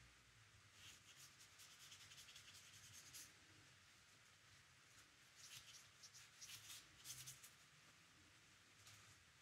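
Faint scratchy strokes of a watercolour paintbrush on paper, in two runs: one about a second in and another past the middle.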